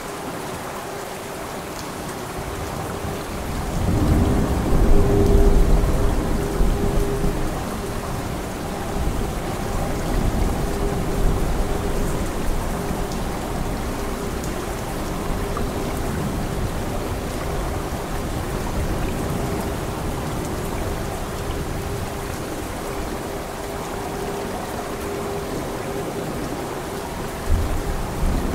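Steady rain with a rolling thunder rumble that swells about four seconds in and fades over the next few seconds; another rumble begins near the end.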